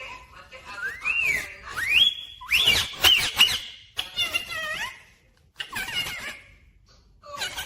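Indian ringneck parrot whistling and chattering: a few rising, arching whistles in the first couple of seconds, then short bursts of squawky, talk-like calls with gaps between them.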